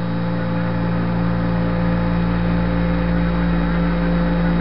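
Steady hum and hiss of an open Apollo 11 air-to-ground radio link, with several constant low buzzing tones and no voice on the channel.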